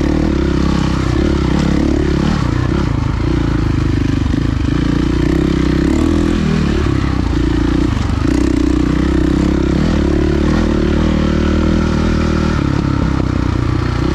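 Enduro motorcycle engine running steadily and loud; a couple of seconds in its note wavers up and down for a few seconds, then settles again.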